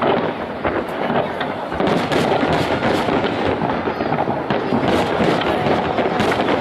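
Aerial firework shells bursting in quick succession: a dense run of overlapping bangs and crackles that gets busier from about two seconds in.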